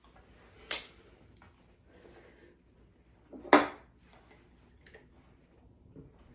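A few sharp knocks and clatters of kitchenware being handled, the loudest about three and a half seconds in, with two fainter taps near the end.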